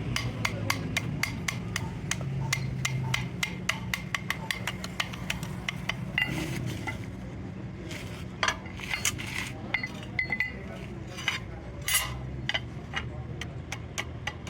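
Rapid light clicks or taps, about five a second, over a steady low hum; after about six seconds they thin out into a few louder knocks, then quicken again near the end.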